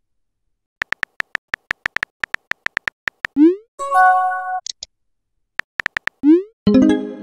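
Texting-app sound effects: a run of quick keyboard typing clicks, about six a second, then a rising whoosh and a short chime as a new message pops up about three and a half seconds in. A few more typing clicks come near six seconds, followed by another rising whoosh and a short chord at the end.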